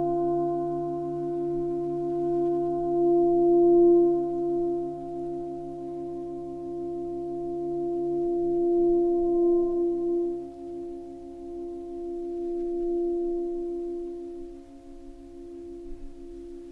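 Background music of a sustained ringing drone: several steady tones held together, some with a regular pulsing beat, swelling twice and growing softer over the last few seconds.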